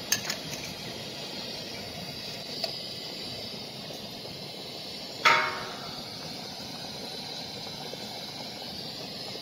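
Rice boiling hard in an aluminium pot under a plate lid, a steady hiss. A few small clicks at the start and one sharp ringing clink about five seconds in.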